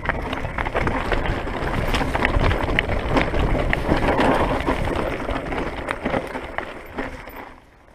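Mountain bike rolling over rough ground: tyre noise and the rattle of the bike, with wind on the microphone. It dies away about three-quarters of the way through as the bike stops.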